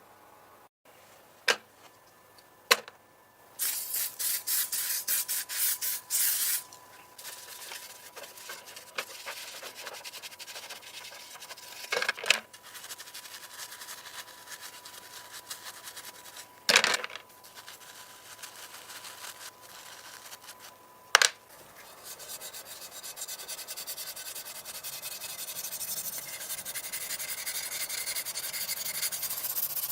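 Hand work on a small diecast model car: sharp clicks and knocks of small metal and plastic parts, a few seconds of rapid ticking, then a hiss that grows steadily louder over the last eight seconds.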